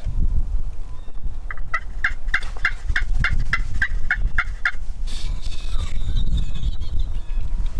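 Turkey calling: a run of about eleven evenly spaced notes, roughly three a second, over a steady low rumble.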